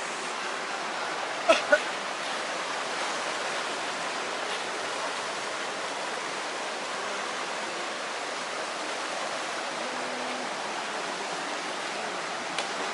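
Steady rush of a stream or river, an even hiss with no rise or fall. There are two short sharp knocks about a second and a half in.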